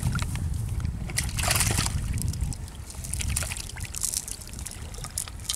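Live fish thrashing in water in a plastic basin, with irregular splashes and sloshing, over a low rumble that is stronger in the first couple of seconds.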